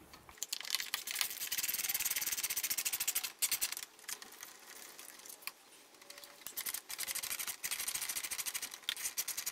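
Hand ratchet wrench with a Torx bit clicking rapidly as it is worked to undo Torx screws, in spells with a quieter lull in the middle.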